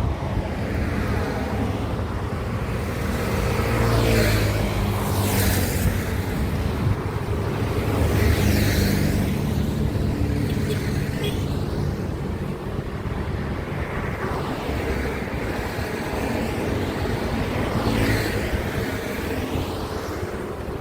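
Highway traffic: heavy trucks and other vehicles passing one after another, a low engine drone with tyre hiss swelling and fading as each goes by, the loudest passes about four, eight and eighteen seconds in.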